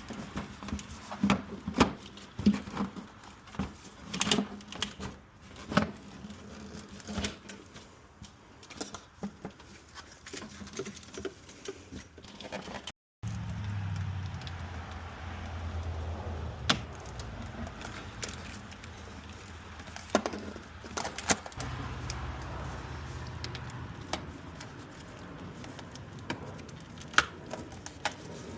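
Scattered clicks, taps and clinks of hand tools and loose fasteners while the fan shroud is being unbolted under a van's hood. After an abrupt cut about halfway through, a steady low hum carries on with a few clicks.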